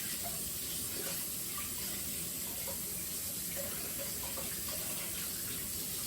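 Tap water running steadily into a sink, splashing as a solar light's plastic stake is rinsed of mud under the stream.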